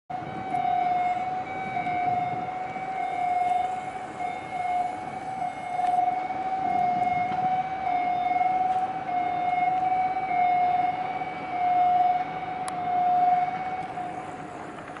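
Crane warning alarm sounding a steady high-pitched tone that holds its pitch and swells and fades about once a second, dying away near the end.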